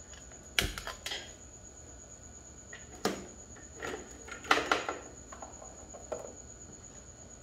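Small objects being handled and set down: about six light clinks and knocks spread over the stretch, the loudest a cluster about four and a half seconds in. A steady high whine runs underneath.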